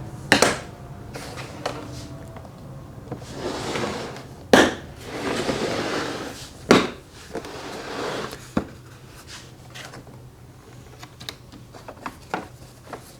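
Hard knocks and clacks of a heavy socket-set case being handled in a metal toolbox drawer, with a stretch of scraping or sliding between the knocks. The loudest knocks come about half a second, four and a half and seven seconds in.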